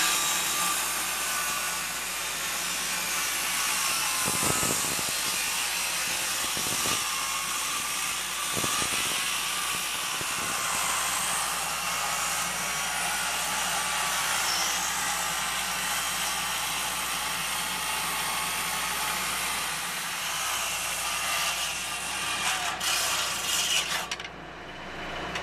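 Skil Mag 77 worm-drive circular saw ripping a 2x4 lengthwise, the blade running steadily through the wood, with a few knocks in the first ten seconds. The sound drops off near the end as the cut finishes.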